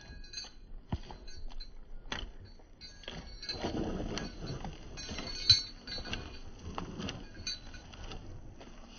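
Horse moving loose in a sand arena: scattered hoof thuds and clinks from the metal fittings of its halter, with one sharper knock about five and a half seconds in.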